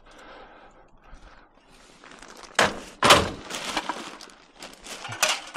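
Scrap metal clanking as it is loaded: a quiet start, then two sharp hits about two and a half and three seconds in, followed by rattling clatter and a few more hits near the end.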